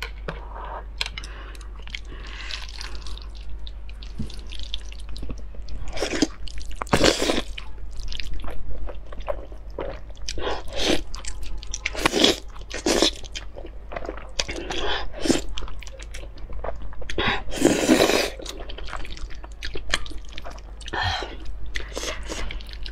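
Close-miked slurping and wet chewing of spicy fire-chicken noodles: a string of short, loud slurps with quieter chewing in between.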